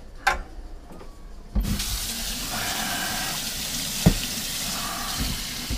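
Kitchen tap turned on about one and a half seconds in, water running steadily into the sink, with one sharp knock about four seconds in.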